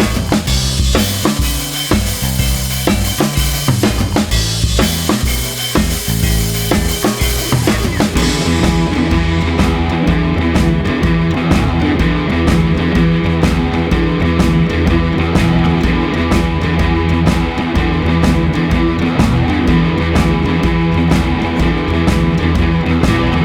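Background music with a drum kit and bass; about eight seconds in it changes to a steadier beat of evenly spaced drum hits over held bass notes.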